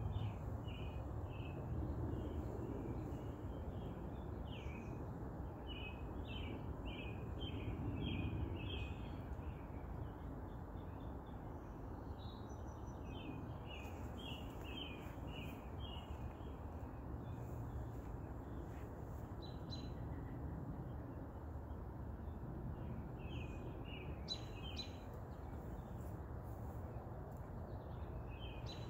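Small birds chirping in runs of short, quickly repeated notes, over a steady low background noise.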